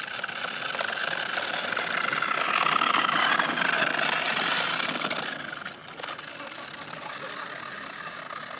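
Radio-controlled model delivery van running past close on a concrete path, louder as it nears. The sound drops off suddenly about five and a half seconds in.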